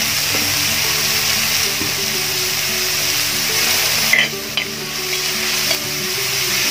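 Sliced onions sizzling steadily as they fry in hot sunflower oil in a metal pot. About four seconds in, a metal ladle stirs them, with a couple of light scrapes.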